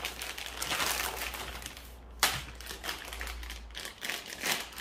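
Plastic packet of fish cakes crinkling and rustling as it is handled and slit open with a kitchen knife, with one sharp tap a little over two seconds in.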